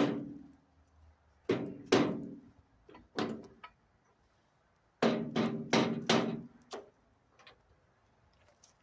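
Hammer blows on metal go-kart parts, each ringing briefly: a hard strike at the start, a pair, a single, then a quick run of four blows, and a few lighter taps near the end.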